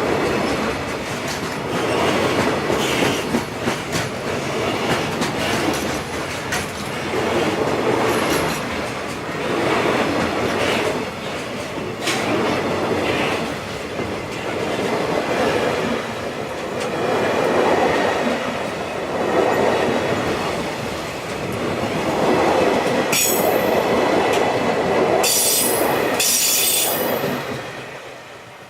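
A locomotive-hauled train rolling past, its wheels clattering over the rail joints in swells every couple of seconds. Short high wheel squeals come near the end, and then the sound fades away.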